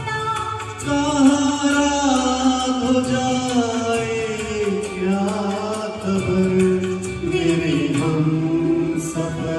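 A man singing a Bollywood song into a handheld microphone with instrumental accompaniment, holding long notes that slide slowly in pitch over a steady rhythm.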